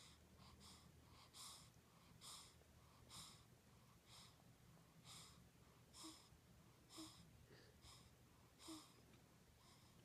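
A sleeping newborn baby breathing noisily: faint, short hissing breaths, about one a second, over a faint steady low hum.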